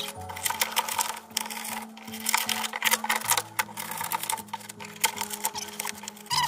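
Background music with steady bass notes, over rapid irregular clicking and scratching from hand work, such as trimming excess foam from a camper wall edge.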